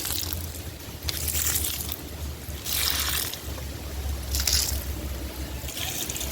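Rustling swishes about every second and a half, over a low rumble of wind on the microphone.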